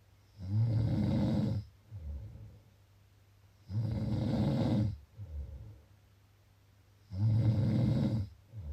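Someone snoring in a slow, regular rhythm: three loud, rasping snores about three and a half seconds apart, each followed by a shorter, softer breath.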